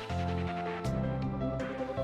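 Background music: sustained synth-like notes over a bass line, with a couple of sharp percussive hits.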